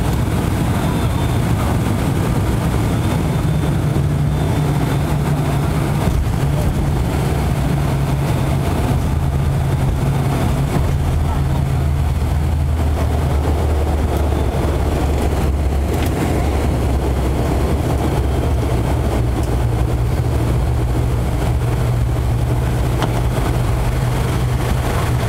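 Cabin noise of an ATR 72-500's twin Pratt & Whitney Canada PW127 turboprop engines and propellers during the landing rollout on the runway. A loud, steady drone whose low propeller hum shifts in pitch a couple of times.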